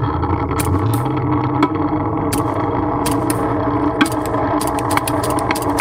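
Pulley carriage of a zip-line clay target running along the rope: a steady whirring hum with frequent sharp clicks and rattles.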